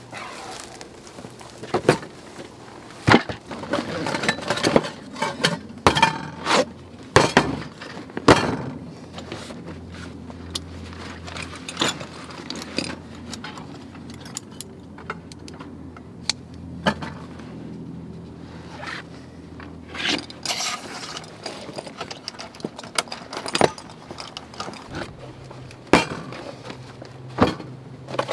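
Camping cookware being unpacked and set down on a metal fold-down table: scattered clinks, knocks and scrapes of metal pots and a moka pot, with rustling of a cloth kit bag.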